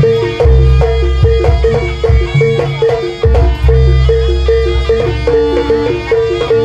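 Live Javanese gamelan music accompanying a buto dance: a high note struck over and over in a steady pattern, heavy low drum beats, and a wavering melody line above.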